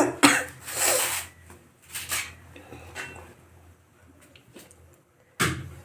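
Fried fish pieces being put into curry in a metal kadhai, with clatter and handling noise from the utensils. There are a few short noisy bursts in the first couple of seconds, a quieter stretch, and another sharp burst near the end.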